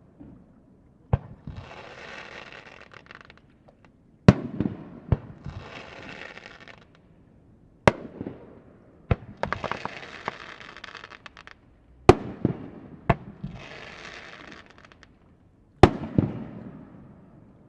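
Aerial fireworks shells bursting over a lake, a sharp bang about every four seconds, each trailing off in a rumbling echo. A lighter bang follows each big one and is followed by a crackling hiss of crackling stars.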